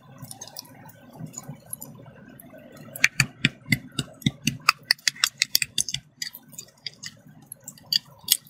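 Hard-boiled eggs being peeled by hand over steel plates: rapid little cracks and clicks of shell breaking and pieces dropping onto the metal, thickest about three to six seconds in.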